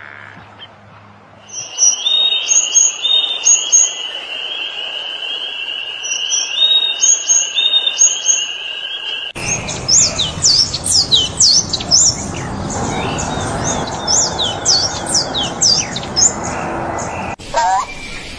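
Birds singing in two separate clips. First comes a steady high trill with short sharp notes repeated above it. After an abrupt change about nine seconds in, many quick downward-sliding chirps follow over a noisier background.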